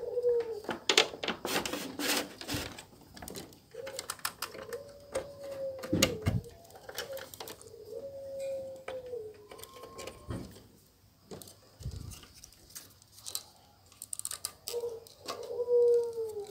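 Clicks and rattles of plastic connectors and wiring being handled and plugged back onto a CRT television's neck board. A dove coos in the background, in drawn-out notes that rise and fall, three times.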